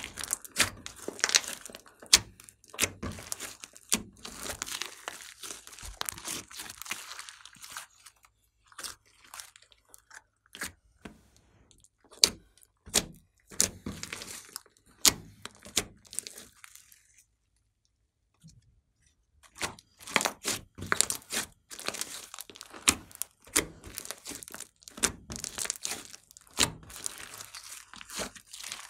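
Hands kneading and squeezing a large mass of glossy slime with makeup and glitter mixed in, making dense sharp pops, crackles and sticky tearing sounds. It falls quiet for a couple of seconds past the middle, then the popping resumes.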